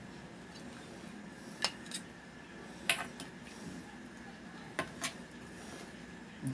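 Metal spatula clinking and scraping against a metal cooking pan and a plate while serving fish: about six short, sharp clinks, the loudest about three seconds in.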